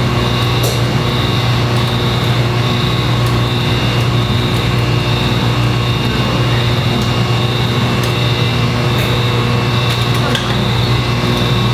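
Steady mechanical hum of running laboratory machinery, with a constant high whine on top and a few faint clicks as hands work fittings on the deposition apparatus.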